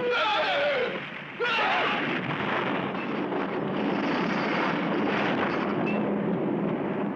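Cartoon sound effects of a laboratory being blown apart: falling cries in the first second, then a sudden blast about a second and a half in, followed by a steady rumble of crashing debris.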